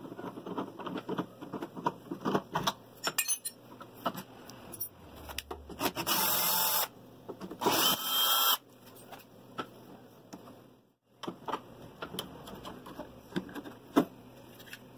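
Cordless drill-driver running twice, about a second each time, backing out the faceplate screws of a mortise door lock. Around it come light clicks and knocks of the metal lock hardware being handled, with a sharper click near the end as the lock body is pulled from the door.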